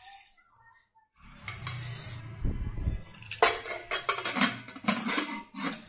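Pressure cooker's metal lid being fitted onto the pot, a run of metal clanks and clicks from about three seconds in.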